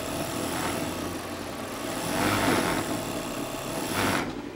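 Juki MO-3616 industrial overlock serger running at sewing speed, stitching a 5-thread overlock seam. A steady mechanical running noise over a low hum swells and eases a few times, then stops sharply about four seconds in.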